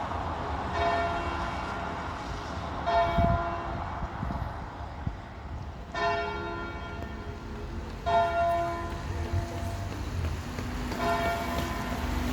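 Church bells ringing, a new strike about every two to three seconds with each note ringing on. A low steady rumble lies underneath.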